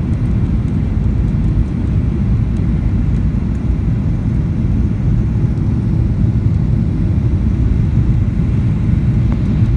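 Steady low rumble of engine and airflow noise inside the cabin of a Boeing 737-800 in flight, late in its descent toward landing.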